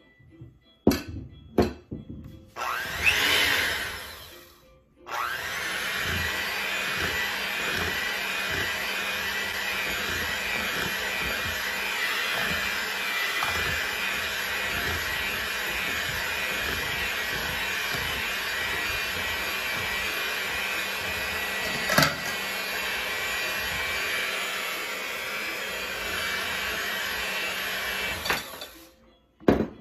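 Electric hand mixer: a couple of clicks, a brief burst of the motor with a rising whine, then the mixer runs steadily at speed with its beaters churning cake batter in a bowl for over twenty seconds. It is switched off near the end.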